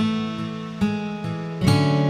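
Background music: an acoustic guitar plucking a melody over sustained chords, a new note struck about every half second.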